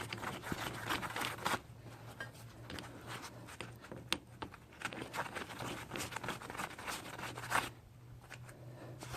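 Scattered small metallic clicks and clatter of lug nuts being handled and threaded back onto a tractor's wheel studs, with a low steady hum underneath.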